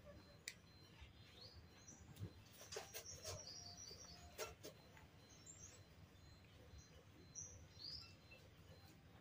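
Near silence with faint, short high-pitched chirps scattered throughout, bird-like, and a few light clicks and taps about three to four and a half seconds in.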